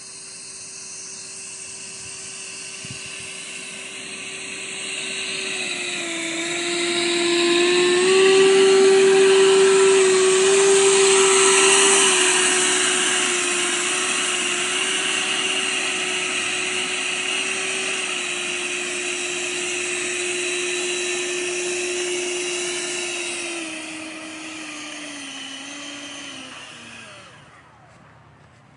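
Electric ducted fan of a radio-controlled BAE Hawk model jet whining steadily as the model taxis in over the grass, growing louder as it comes near. Near the end the fan steps down in pitch twice, spools down and stops.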